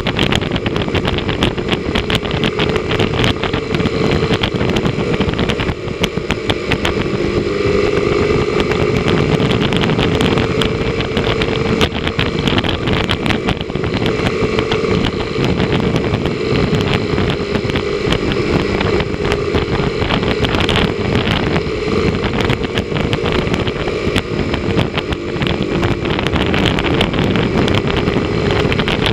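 Motorcycle engine running at a steady cruising speed, its drone drifting slightly up and down in pitch, under heavy wind rush buffeting the microphone.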